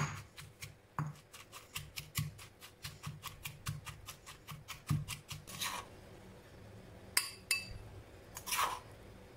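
Stone pestle pounding chilies and shallots into a paste in a stone mortar, a quick steady run of strikes about five a second. In the second half a spoon scrapes the paste out of the mortar, with a couple of sharp taps.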